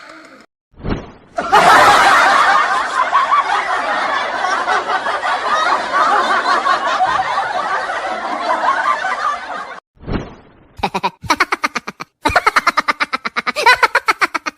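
Laughing sound effects: a dense stretch of laughter lasting about eight seconds, then short, rapid, choppy bursts of laughing at a few per second.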